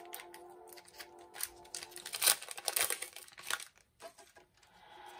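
Foil booster pack wrapper being torn open and crinkled: a run of sharp crackles and rustles, loudest a little over two seconds in, then stopping. Soft background music plays under it at the start.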